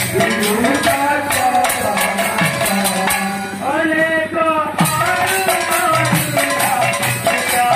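Devotional kirtan music: singing over a steady beat on two-headed barrel drums, with jingling cymbals. About halfway through, the cymbals drop out for a moment while a voice holds a long note.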